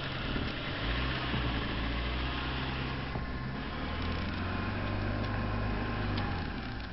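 VAZ 2111's four-cylinder petrol engine running as the car pulls away, heard from inside the cabin; the revs step up about a second in and fall away shortly before the end. The throttle is misbehaving, which the driver puts down to a sticking throttle cable.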